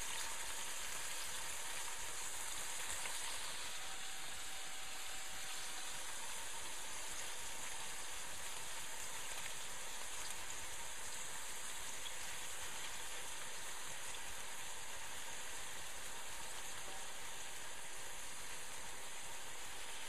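Veal rolls sizzling in oil in a stainless steel pot, a steady even frying hiss over heat turned down low so they brown gently.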